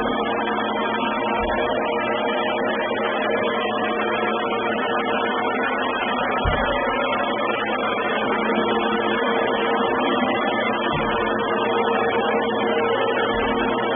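Samsung robot vacuum cleaner running: a steady motor drone with a constant hum under it, heard harsh and distorted through the camera microphone. A few brief low thumps come and go over the drone.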